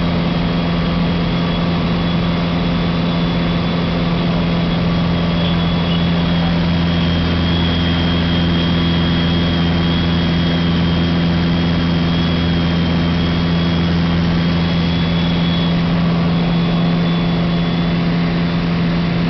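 Single piston engine and propeller of a Socata Rallye 100 light aircraft, heard from inside the cockpit, running steadily at power as the plane climbs out after a touch-and-go. A faint high whistle rides over the drone through the middle.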